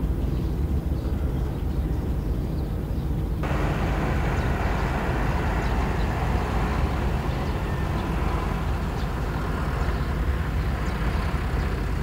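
Farm tractor engine running steadily while tilling a flooded rice paddy, a low engine drone. About three and a half seconds in the sound shifts suddenly to a fuller, hissier noise.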